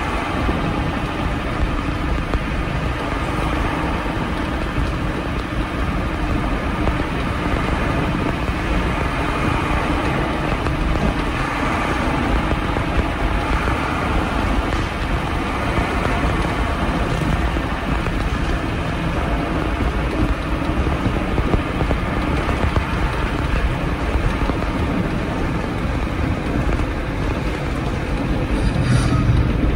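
Mercedes-Benz 1417 truck's freshly overhauled diesel engine running steadily under way in fifth gear, heard from inside the cab together with road noise. It grows louder near the end.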